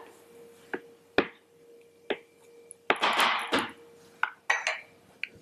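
A spatula knocking and scraping against a Blendtec Twister blender jar while thick cocoa hazelnut paste is scraped down between blending runs. Scattered sharp knocks, with one louder scrape about three seconds in.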